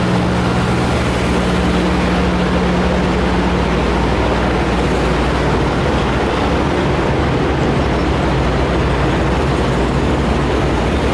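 Diesel engines of parked semi trucks idling, a steady noise with a low hum that fades out about four seconds in.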